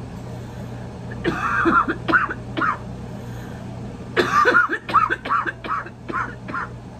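A woman coughing hard in two fits, about a second in and again about four seconds in, into a cloth held over her mouth: the cough of someone who has just taken a hit from a glass bong.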